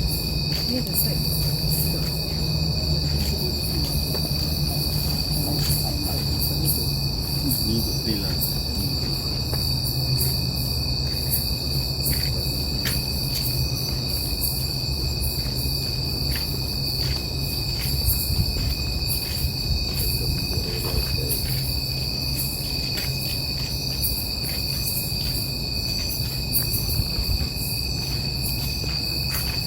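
Night insects, crickets or similar, calling in a continuous high, steady trill with many fast ticks, over a steady low rumble.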